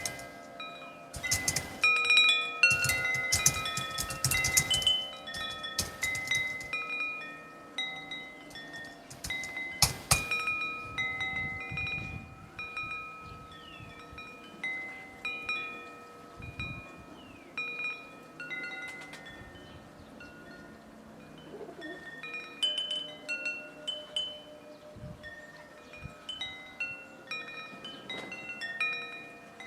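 Chime tones struck irregularly at many different pitches, each ringing on for about a second. They are dense and loudest over the first seven seconds, with one loud strike about ten seconds in, then come sparser.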